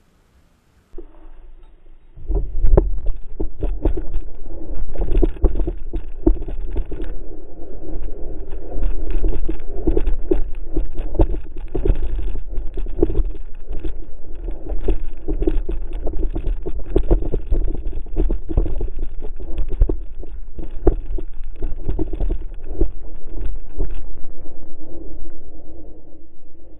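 A camera-mounted sled dragged over grass by a dog, rumbling and scraping with many rapid knocks and bumps. The noise starts about two seconds in and stops just before the end.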